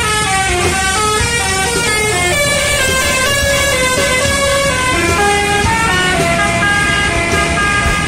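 Bus telolet horn playing a quick melody, several horn notes sounding together and stepping up and down without a break, over the low sound of the bus engine.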